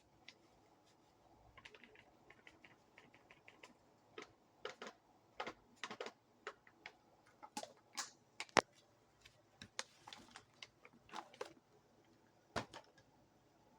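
Irregular light clicks and taps, some in quick runs, with a sharper knock about eight and a half seconds in and another near the end.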